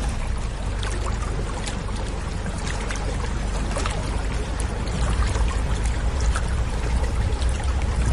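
Open-sided safari vehicle on the move: a low engine and road rumble with wind blowing across the microphone, growing louder toward the end.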